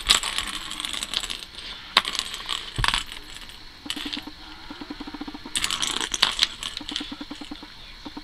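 Plastic ball clattering and rattling in the track of a circular ball-track cat toy as a cat bats at it, in three bursts of quick clicks. Between the bursts, a low, fast pulsing sound comes and goes.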